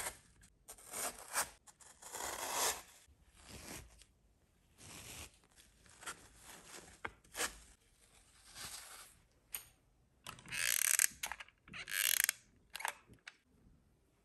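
Hands pulling apart and fluffing polyester wadding: a series of irregular rustling, tearing and scraping sounds, with the two loudest rips near the middle and towards the end.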